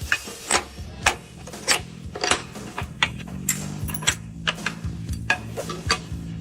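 Irregular sharp clicks and knocks, about two a second, over background music.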